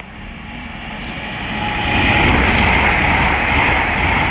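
LNER Azuma (Hitachi Class 800-series) express train passing through the station at speed. A rushing noise builds over the first two seconds, then holds as a loud, steady roar of wheels and air before it starts to ease near the end.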